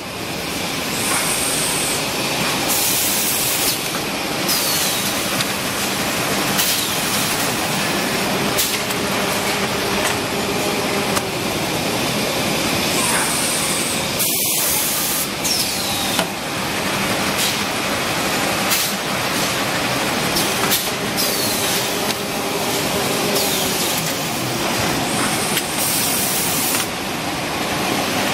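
Semi-automatic toilet-roll packing and sealing machine running with a steady mechanical noise. Short hisses of compressed air from its pneumatic cylinders recur in a cycle every several seconds.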